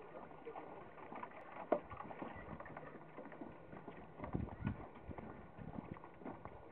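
Footsteps on a wooden dock: a person's shoes and a pug's paws knocking and tapping irregularly on the boards, with heavier thumps about four to five seconds in.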